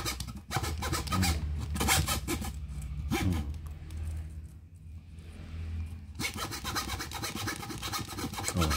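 Hand-held U-frame plywood saw with a thin blade sawing back and forth in quick, short strokes. The strokes ease off for a couple of seconds in the middle, then pick up again.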